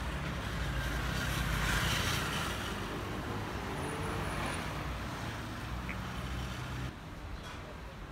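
Street traffic noise: a steady rumble of road vehicles, with a vehicle passing about two seconds in. The sound drops in level near the end.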